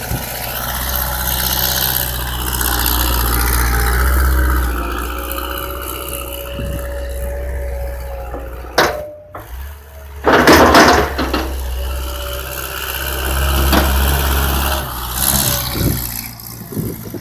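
TCM compact wheel loader's diesel engine running, its speed rising and falling twice as the loader works in the snow. About ten seconds in there is a sharp knock and then a loud brief rushing burst.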